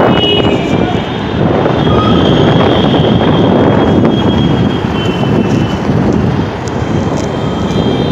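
Loud wind rushing over the microphone of a moving electric bike, over the steady rumble of road traffic: lorries and auto-rickshaws close alongside.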